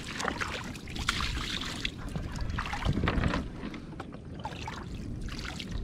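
Shallow water sloshing and splashing as a person wades and handles a cast net, with a few louder splashes about one and three seconds in.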